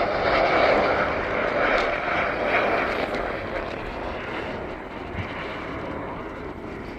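Jet aircraft flying past, its engine noise loud at first and then fading steadily as it moves away.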